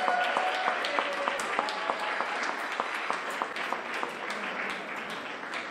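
Crowd applauding, the clapping gradually dying down.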